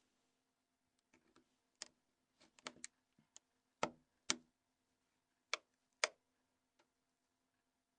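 Plastic snaps of a Nokia N82 phone's UI module clicking open as they are pried with a plastic opening tool: a dozen or so sharp, separate clicks, the loudest coming in two close pairs around the middle.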